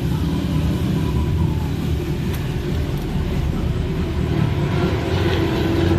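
Toyota Innova D4D diesel engine running steadily with its viscous clutch fan turning, a continuous low rumble with a steady hum.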